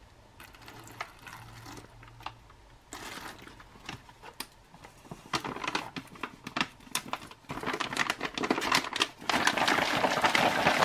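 Foil flameless ration heater bag crinkling as its top is folded shut and the bag is handled, growing from scattered crackles into a loud, continuous crinkle in the last few seconds. At the start there is faint pouring as water goes into the bag from a plastic bottle.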